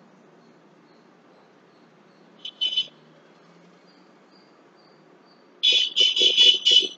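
A bird chirping: a brief pair of high chirps about two and a half seconds in, then five quick chirps in a row near the end, over faint steady background noise.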